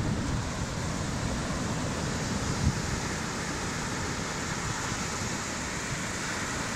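Sea surf washing steadily onto a sandy beach, the shallow water foaming at the shoreline, with one brief low bump about two and a half seconds in.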